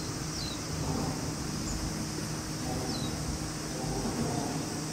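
Outdoor ambience: a steady low rumble and hum under a steady high hiss, with a short falling bird chirp twice, about three seconds apart.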